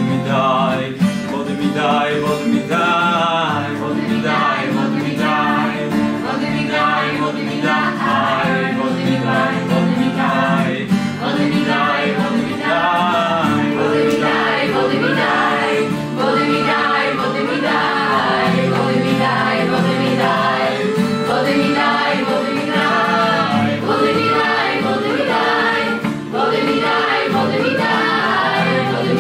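A small group of voices singing together to strummed acoustic guitars, in a live ensemble performance.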